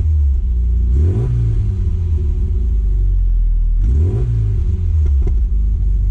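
Exhaust of a 1997 Rover Mini Cooper MPI with its 1275 cc four-cylinder A-series engine, idling steadily. The throttle is blipped twice, about a second in and again about four seconds in, and the revs rise briefly and fall back to idle each time.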